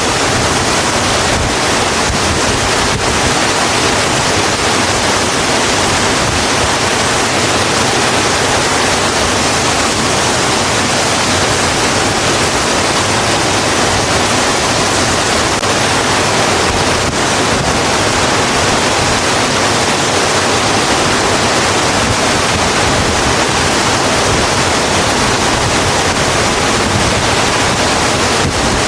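Steady, heavy rain falling on a road, a dense even hiss without distinct drops or thunder.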